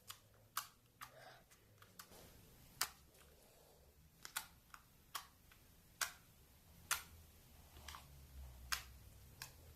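Slime being poked and pressed with fingers, giving about ten short, sharp clicks and pops at uneven intervals.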